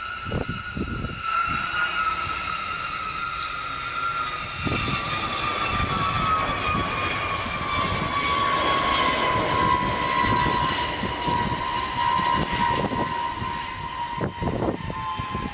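Boeing B-52H Stratofortress landing and rolling out on its eight TF33 turbofan engines: a loud jet whine that falls steadily in pitch as the bomber passes, over a low rumble with gusts of wind buffeting the microphone.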